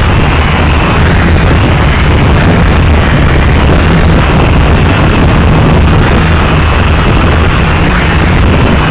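Small stunt quadcopter's motors and propellers running, heard as a loud, steady, distorted buzz and hiss through the tiny microphone of a mini DVR camera mounted on the drone.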